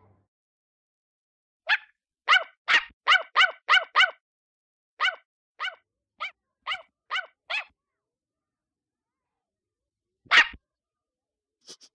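Small puppy yapping: a run of about a dozen short, high barks, quick at first and then more spaced out, then after a pause one louder bark near the end.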